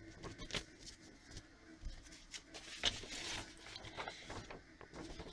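Sheets of paper and a card being handled and shuffled: scattered soft rustles and small taps, with a longer rustle about three seconds in.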